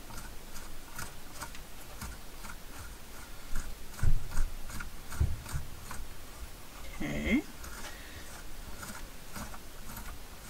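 Light, irregular clicks and taps of plastic parts as hands handle a small electric spinning wheel's plastic frame and bobbin, with a few dull knocks about four to five and a half seconds in.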